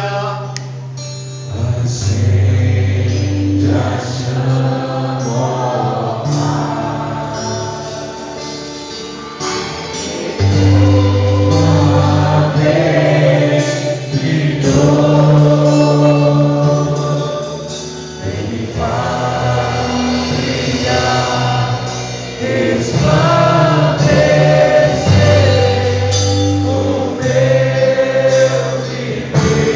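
Christian worship band playing a gospel song, with several voices singing together over long, held bass notes.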